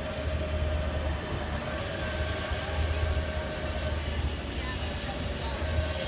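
A vehicle running steadily: a low rumble with a steady high whine over it.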